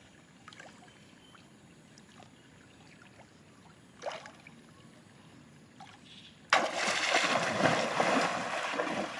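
Faint scattered knocks and a short sharper knock about four seconds in, then suddenly a loud rush of splashing water that lasts about three seconds.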